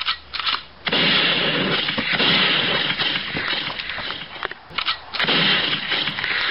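Gunfire: a few separate shots, then rapid fire in a long burst of about three seconds, and a shorter burst near the end.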